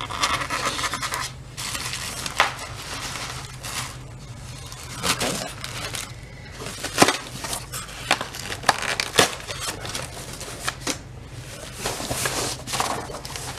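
Packaging being handled and pulled apart while a candy vending machine is unboxed: rustling and tearing, with scattered sharp knocks and clicks.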